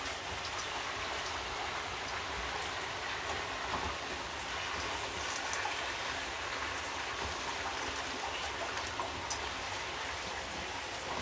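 Chicken sizzling steadily as it stir-fries in a frying pan, with scattered small crackles and pops.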